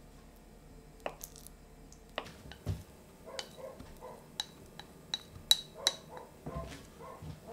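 A knife tapping on a wooden chopping board while butter is cubed, then butter cubes tipped from a small ceramic bowl into a large bowl of flour and grated cheese: soft thuds as the cubes land and several sharp ringing clinks of ceramic on ceramic, loudest a little past halfway.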